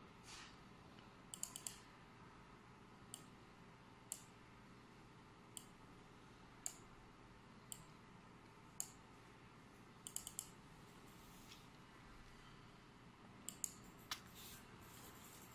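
Scattered clicks of a computer mouse, about a dozen in all: mostly single clicks roughly a second apart, with a few quick runs of two or three clicks, over a quiet room background.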